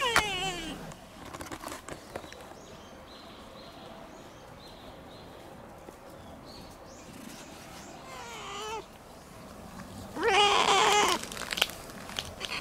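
A young black-and-white cat giving loud, wavering meows of delight at being stroked. A fainter drawn-out call comes about seven seconds in, then a loud, harsh one at about ten seconds, after the tail of an earlier call at the start.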